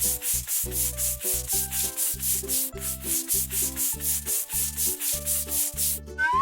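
Cartoon sanding or scrubbing sound effect: quick, even rubbing strokes, about five a second, that stop shortly before the end. Children's background music with a bass line plays under it.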